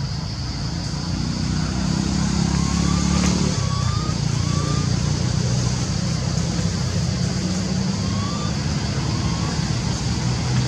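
Steady low engine-like rumble, the loudest sound, with a continuous high-pitched drone above it and a few short rising chirps scattered through.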